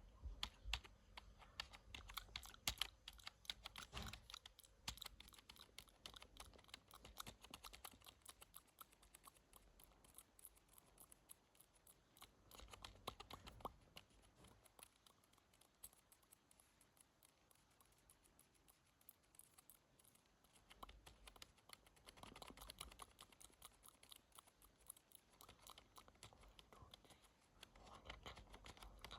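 Mechanical keyboard being typed on: faint keystroke clicks in quick runs, thinning to a few scattered clicks for several seconds around the middle before the typing picks up again.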